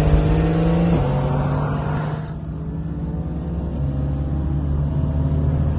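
Car engine pulling at full throttle in a street roll race, heard from inside a moving car, with a gear change about a second in and the pitch then climbing slowly again.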